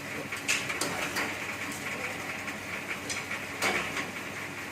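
Bamboo satay-skewer machine running with a steady mechanical whirr, broken by several sharp knocks and clatters as the bamboo is fed through and shaved into skewers.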